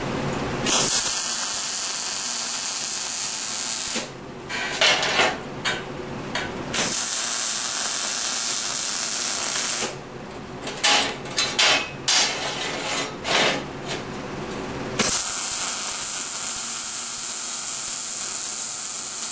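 Electric arc welding hissing and crackling: three steady runs of about three to four seconds each, with short stop-start bursts of arc between them like quick tack welds.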